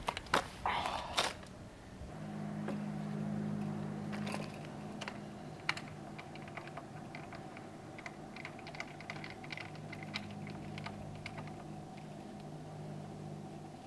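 Clattering and knocking as a heavy ARRI film camera is set onto a tripod head, then many small scattered clicks from handling and adjusting the camera and head, over a steady low hum that starts about two seconds in.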